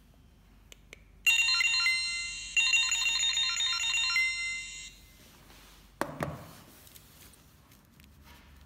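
Handheld RFID reader beeping rapidly as it reads the tags, in two runs of electronic tones lasting about a second and about two seconds. About six seconds in there is a single sharp knock.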